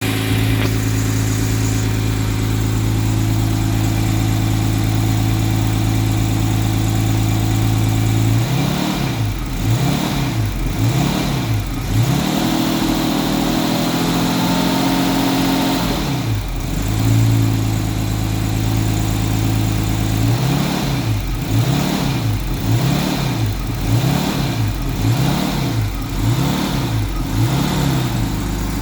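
1989 Jaguar XJS 5.3-litre V12 engine running rough: it idles steadily, then with the throttle held just off idle it surges, its speed swinging up and down about once a second in repeated spells, with a short stretch at higher revs between them. The surging and poor running follow a cut-out and no-start, which the owner suspects came from the ECU not firing the injectors.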